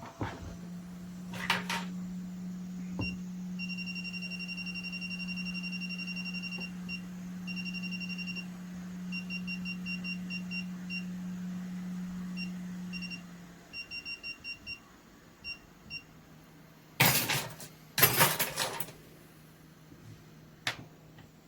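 Repair-bench electronics: a steady low hum with rapid, high electronic beeping in irregular runs, and the hum drops away after about 13 seconds. Near the end come a few loud knocks and clatters of tools or parts being handled, then a single click.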